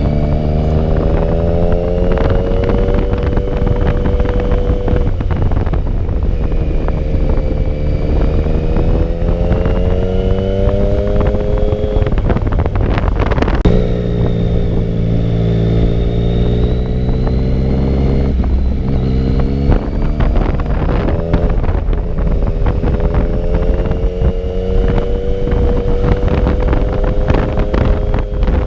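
Sport motorcycle engine running on the road, its pitch climbing and levelling off several times with short breaks between, over heavy wind rumble on the microphone.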